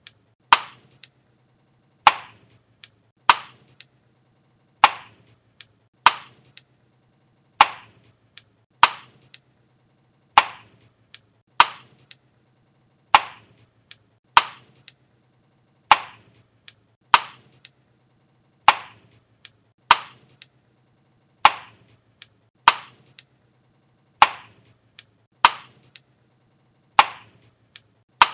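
Chewing gum being chewed with sharp wet snaps, about one every second and a quarter, each followed by a fainter click.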